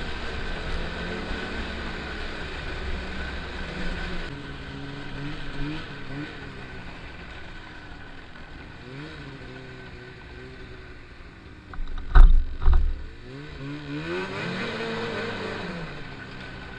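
Snowmobile engine running on the trail, its pitch rising and falling as the throttle opens and eases, with wind rumble on the microphone. A few loud thumps about twelve seconds in.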